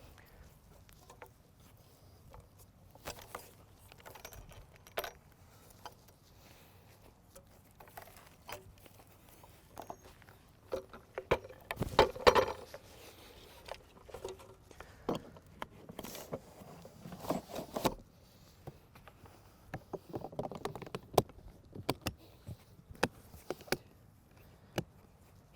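Scattered clicks, knocks and rattles of equipment being handled and dismantled, with a cluster of louder knocks about twelve seconds in.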